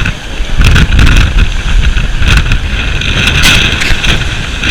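Rough sea with strong wind blowing on the microphone: a loud, uneven rush of noise that swells and eases, heaviest in the low end.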